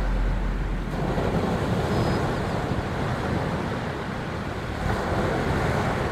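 Surf washing onto a sandy beach: a steady rush of breaking waves that swells about a second in and again around five seconds.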